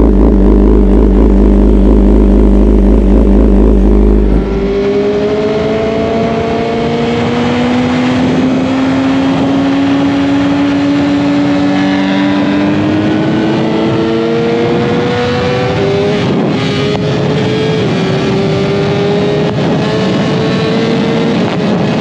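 Four-cylinder 1000cc superbike engine on the move. At first it runs at a steady speed over a heavy low rumble. After about four seconds the sound changes abruptly, and the engine note rises slowly, then climbs in several short rises, each ended by a drop in pitch, as when accelerating through the gears.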